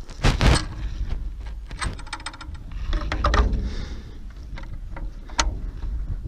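Knocks, clicks and clatter of parts and tools being handled during assembly work, with a brief fast rattle about two seconds in and a steady low rumble underneath.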